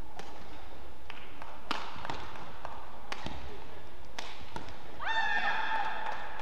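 Badminton rally: rackets strike the shuttlecock in several sharp hits about a second apart. About five seconds in, after the rally ends, comes a high, bending squeal with several pitches.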